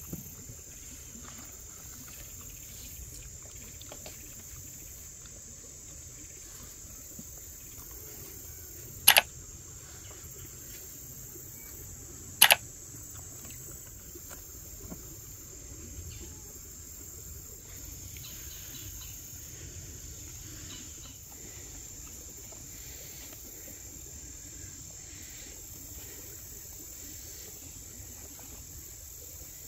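Insects chirring in a steady, even high-pitched drone. Two sharp clicks a little over three seconds apart, about a third of the way in, stand out as the loudest sounds.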